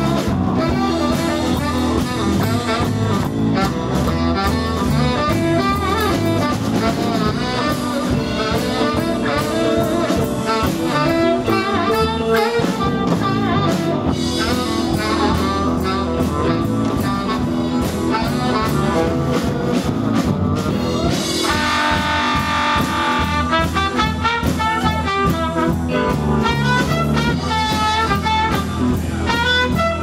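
Live blues band playing an instrumental break: saxophone leading over electric guitar and drum kit, with the horns growing brighter and busier about two-thirds of the way through.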